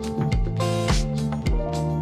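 Background music with a steady drum beat, about two beats a second, over a bass line.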